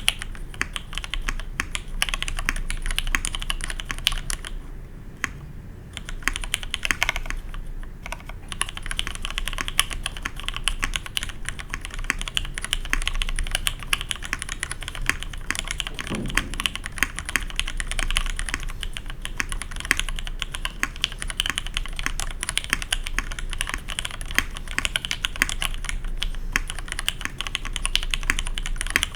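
Fast, continuous typing on a custom mechanical keyboard with an aluminium plate, lubed vintage Cherry MX Black linear switches and NCR 3077 SAU keycaps, with no foam dampening. The keystrokes come in dense runs, with brief lulls about five and eight seconds in.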